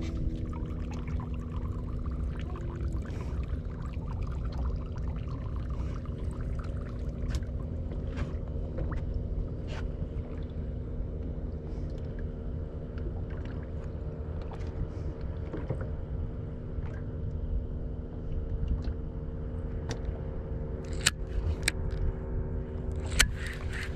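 Boat motor running steadily with a low rumble and a steady hum, water noise around the hull, and scattered small clicks and ticks.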